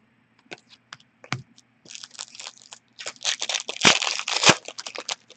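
Upper Deck hockey card pack wrapper being torn open and crinkled: a few light clicks of handling, then a dense crackle from about two seconds in, loudest between three and four and a half seconds.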